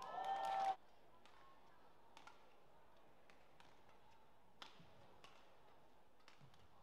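Brief loud high-pitched squeal in the first second, ending abruptly. After it come sparse sharp taps of rackets striking the shuttlecock and a few soft thuds of footsteps on the badminton court mat.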